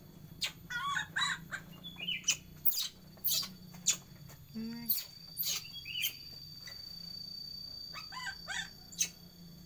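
Baby monkey giving a string of short, high squeaks and chirps, several in quick succession, with a few sharp clicks between them.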